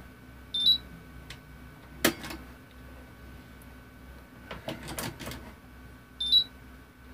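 Two short high beeps about five seconds apart from the buzzer on a GHD mk4 hair straightener control board, each stepping slightly up in pitch, sounding as the simulated thermistor temperature is changed. Sharp clicks and knocks come in between as the dial of the test box is handled.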